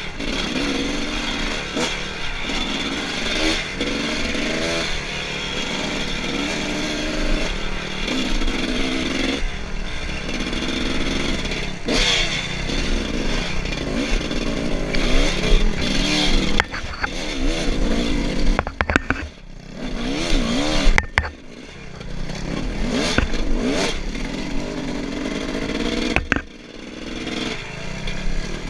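Dirt bike engine revving up and down as it is ridden, the throttle shut off briefly a few times in the second half. Knocks and rattles from the bike going over bumps.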